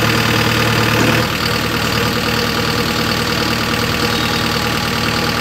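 An engine idling steadily with a rapid, even knock; its tone shifts about a second in, then holds steady.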